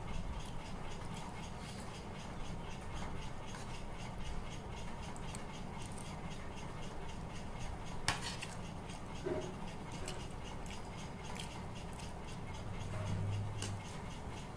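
Metal spoon scraping and clinking now and then against a ceramic bowl of noodles over a steady low room hum, with one sharper clink about eight seconds in.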